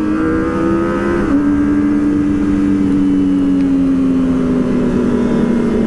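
Kawasaki ZX-25R's high-revving 250 cc inline-four engine running under way. Its pitch rises slightly, drops abruptly about a second in, then slowly sinks, over wind and road noise.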